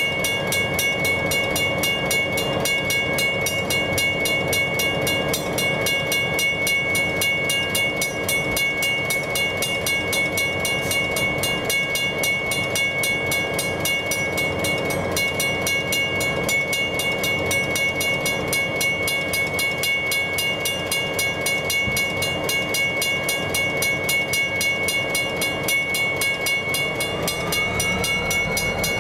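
Level crossing bell ringing rapidly and steadily over the low running of a diesel locomotive standing at the crossing. Near the end the engine note rises.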